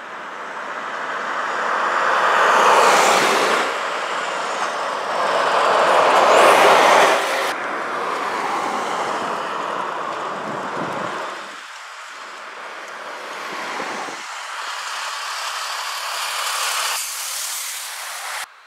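Lorries and cars driving past on a road: engine and tyre noise swelling to two loud pass-bys in the first seven seconds, then quieter traffic that cuts off abruptly near the end.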